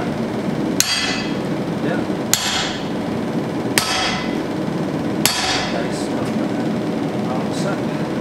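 Four hammer blows on red-hot steel on a blacksmith's anvil, about one every second and a half, each with a brief metallic ring, over a steady background noise. The smith is cutting surplus steel off a carving-axe blank.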